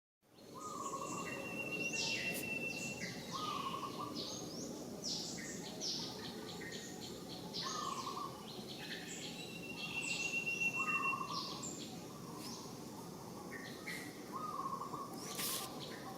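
Several birds singing and calling: many quick chirps, a short lower whistle repeating every two to three seconds, and a held higher whistle twice, over a steady background outdoor noise.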